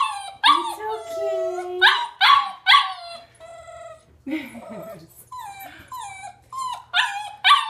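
A 7½-week-old Greater Swiss Mountain Dog puppy whining and yelping in quick, high cries, some drawn out into falling howls, with a lower falling cry about halfway through: the puppy's frustration at not daring to go down the stairs.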